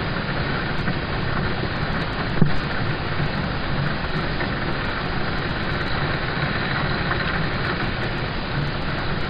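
Steady rain falling on a car, heard from inside the cabin as an even, unbroken hiss. There is one single louder tap about two and a half seconds in.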